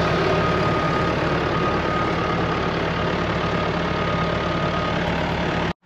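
Massey Ferguson 5445 tractor's diesel engine running steadily under a loud, even hiss, with a thin high whine over the engine note; it cuts off suddenly near the end.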